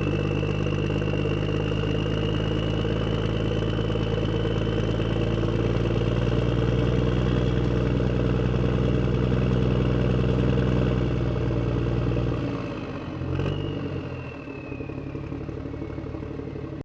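Engine of a heavy machine such as a bulldozer running steadily, with a high whine above it; about twelve seconds in the engine drops back, a click follows about a second later, and it runs on quieter.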